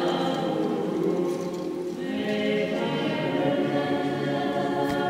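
Church choir chanting Orthodox liturgical music unaccompanied, several voices holding long notes, with a short break in the phrase about two seconds in.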